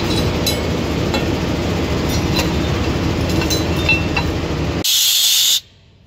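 Tractor engine idling steadily, with scattered light metal clinks as the baler's hitch is worked free. Near the end a short, loud hiss cuts in and stops abruptly.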